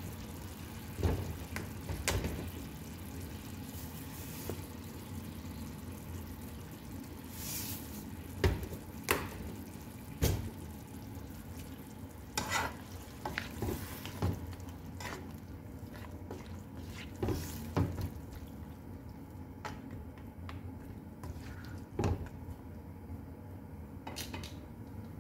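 Chicken feet simmering in adobo sauce in a nonstick wok with a steady low bubbling and frying noise. A utensil knocks and scrapes against the pan now and then, a dozen or so irregular sharp clacks as the pieces are stirred.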